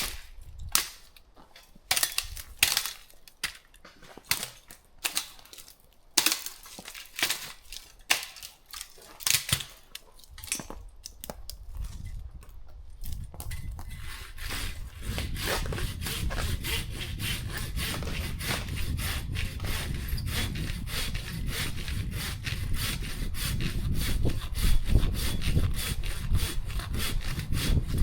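Wood being sawn by hand. Separate strokes come first, then a fast, steady sawing rhythm from about halfway through that gets louder near the end.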